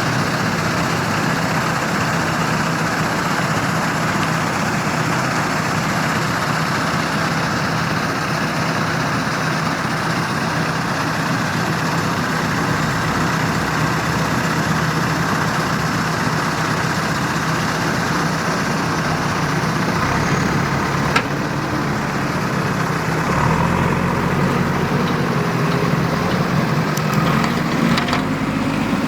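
Heavy diesel machinery engine running steadily. In the last few seconds its pitch rises and falls as it revs under load.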